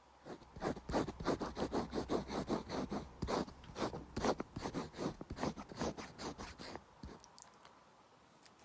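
An eraser rubbed quickly back and forth on paper, about four to five scratchy strokes a second, stopping about seven seconds in.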